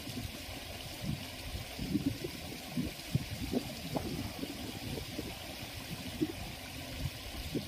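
Water trickling and gurgling at a small sluice channel: a steady hiss with irregular low gurgles.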